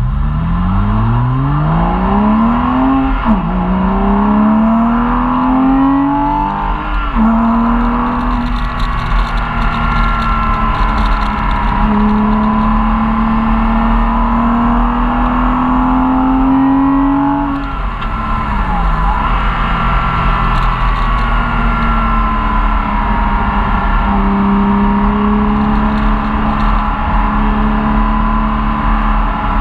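Porsche Cayman S flat-six engine heard from inside the cabin, accelerating hard through the gears. There are two upshifts in the first seven seconds, then it holds high revs. It eases off briefly about eighteen seconds in before pulling again.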